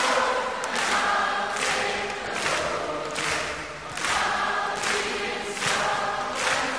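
Background music: a choir singing, with a steady pulse.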